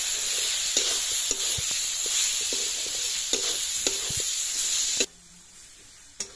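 Ground spice paste with onion and bay leaves sizzling in hot oil in a metal karahi, while a flat steel spatula stirs and scrapes the pan in repeated strokes: masala being fried. The sizzle cuts off suddenly about five seconds in, leaving only a couple of faint spatula clicks.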